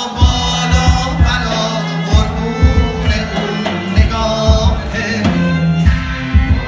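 Live Iranian folk song: a voice singing over drum strokes in a steady rhythm, with a low held tone underneath.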